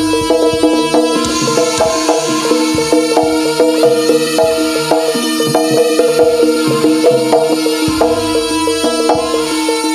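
Jaranan gamelan music played live: drums and struck percussion keep a steady beat over ringing, sustained pitched metal tones.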